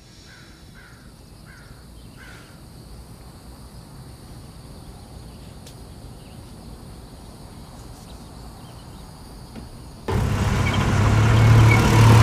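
Four short crow caws over quiet outdoor ambience in the first couple of seconds. About ten seconds in, a loud, steady car engine sound cuts in suddenly.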